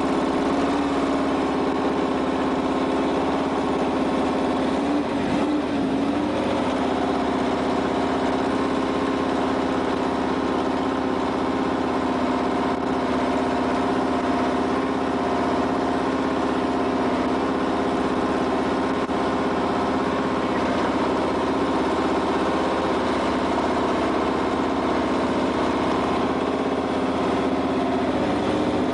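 Formula One car's engine idling steadily, one even drone, with a brief wobble in pitch about five seconds in.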